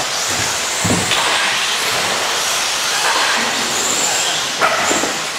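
Several radio-controlled stadium trucks racing on a dirt track: a steady high hiss of motors and tyres, with a thin high whine that comes and goes and a short knock about a second in.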